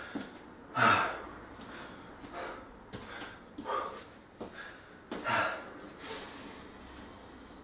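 A man breathing hard to recover after a high-intensity interval: several loud, breathy exhalations, the loudest about a second in.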